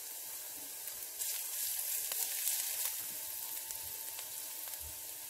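Minced garlic sizzling in a spoonful of oil in a stainless-steel wok as it is stirred with a silicone spatula, being sautéed until fragrant. The sizzle swells about a second in and eases again after a couple of seconds.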